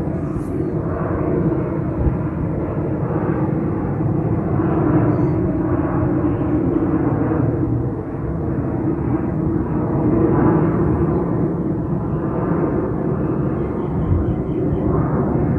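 Boeing 717 jet airliner taking off, its two rear-mounted turbofan engines giving a loud, steady rumble as it climbs out.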